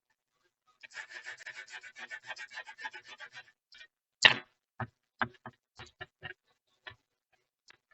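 A brush scrubbing over a laptop motherboard to clear corrosion, in quick rhythmic strokes for about two and a half seconds. Then comes a sharp knock, followed by a string of lighter taps and clicks.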